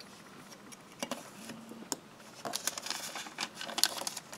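Foundation paper crinkling and rustling as it is folded back over the edge of an acrylic quilting ruler, with a few light clicks of the ruler being handled on the cutting mat. Two separate clicks come early, then a busier stretch of rustling and clicks in the second half.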